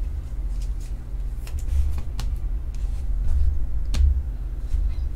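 Trading cards being handled: a chromium card slid into a clear plastic sleeve and cards set down on a tabletop, giving a few light ticks and taps over a steady low hum.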